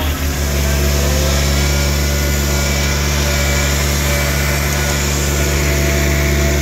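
John Deere 1025R compact tractor's three-cylinder diesel engine idling steadily just after a cold start, still cold. Its note drops slightly at the very start, then holds even.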